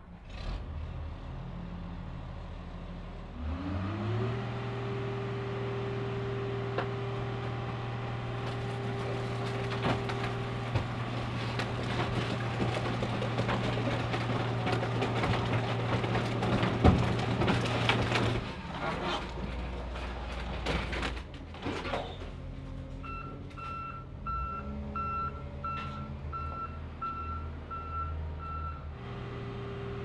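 Hydraulic car crusher's engine revs up about four seconds in and runs steadily while the crusher lid presses down on two stacked cars, with repeated cracking and crunching of metal and glass that peaks around halfway through. Near the end, a wheel loader's reversing beeper sounds for about six seconds.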